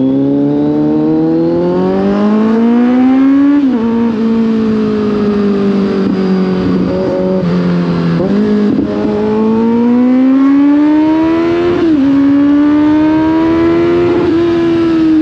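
Kawasaki Z900's inline-four engine accelerating through the gears, heard from the rider's seat. The engine note rises steadily in each gear and drops sharply at upshifts about 4 s and 12 s in, easing off for a few seconds in the middle.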